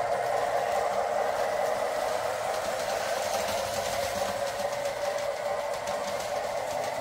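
Lionel O gauge diesel locomotive and freight train running on three-rail tubular track: a steady whir of the motor and gearing with wheels rolling on the rails, easing slightly as it moves away near the end.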